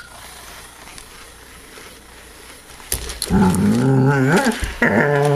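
A Doberman giving two drawn-out, wavering, pitched vocal calls, each over a second long, the first starting about three seconds in.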